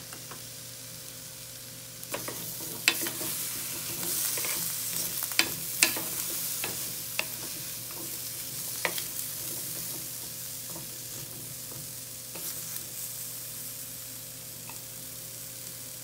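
Onion, garlic, ginger, lemongrass and turmeric sizzling in olive oil in a stainless steel pot, stirred with a wooden spoon. Between about two and nine seconds in, the spoon clicks and knocks against the pot, and after that the sizzle goes on steadily and more softly.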